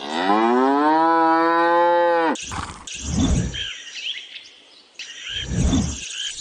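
A cow mooing once, a long low call that rises in pitch and then holds for about two seconds. Afterwards, birds chirp, with two low rumbles about three and five and a half seconds in.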